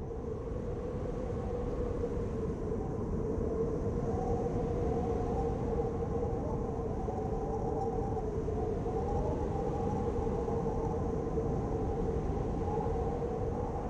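Steady low rumbling drone with a held tone and a slightly wavering higher tone over it, swelling in at the start and fading out near the end.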